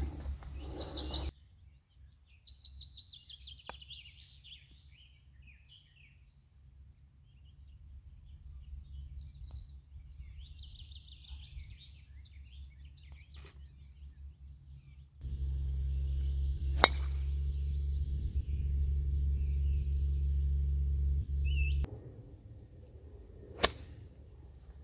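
Birds singing through the first half. Then a steady low rumble for several seconds with one sharp click in it, and near the end a single sharp crack of a golf driver striking the ball off the tee.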